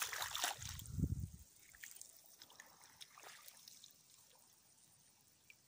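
Water splashing and trickling in a flooded rice paddy over a low rumble for the first second and a half, then only faint scattered drips and ticks.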